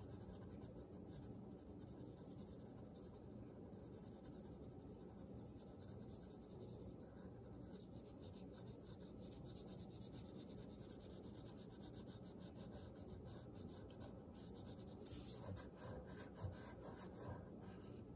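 Pencil lead scratching on paper in quick back-and-forth shading strokes, faint, a little louder in the last few seconds.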